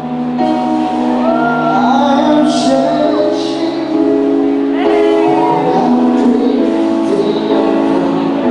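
Live rock band music: sustained held chords with a voice singing over them.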